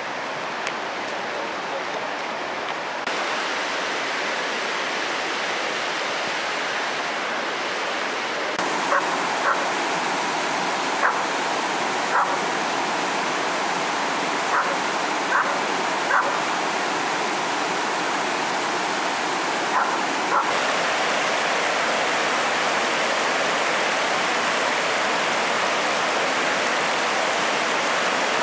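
Fast river rapids rushing over rocks, a steady white-water noise that grows louder in steps. In the middle, a string of about nine short, sharp calls stands out above the water.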